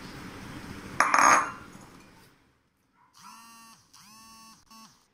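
A glass bowl clinks sharply against a hard surface about a second in, after a little handling rustle. From about three seconds there is a run of short buzzing tones, each held at one pitch for well under a second.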